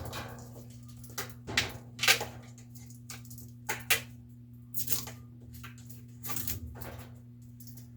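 Irregular clicks, knocks and scrapes of parts and tools being handled during a washer repair, about ten in all, over a steady low hum.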